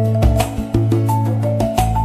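Gentle instrumental background music led by marimba, with struck melody notes over a steady bass line and light percussion hits.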